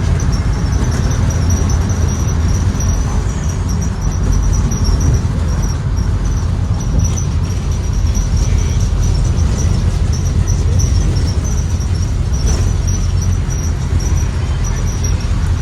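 Cabin ride noise of a 2023 Blue Bird Vision school bus with a Ford 7.3L gasoline V8 on the move: a loud, steady low engine and road rumble, with a thin high-pitched whine running over it.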